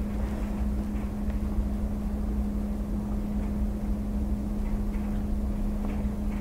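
Classroom background noise: a steady low rumble with a constant hum, unchanging throughout.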